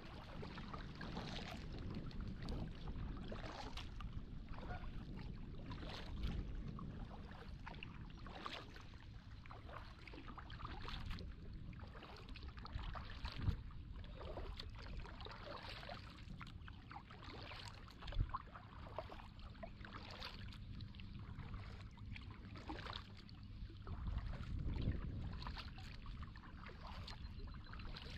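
Kayak paddle strokes dipping and splashing, with water dripping and trickling around the kayak and a couple of sharp knocks.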